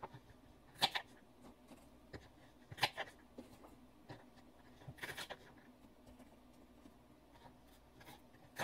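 Kitchen knife knocking on a cutting board while slicing green chillies: a few separate, faint chops a couple of seconds apart, with a small cluster about five seconds in.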